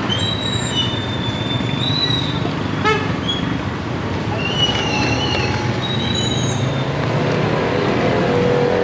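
Steady street traffic noise from passing motorbikes. Several high, thin squealing tones lasting about a second each rise over it, and there is a short burst of rapid ticking about three seconds in.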